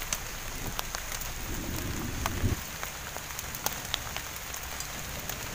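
Small wood fire crackling under a wok of simmering fish broth: a steady hiss with scattered sharp pops.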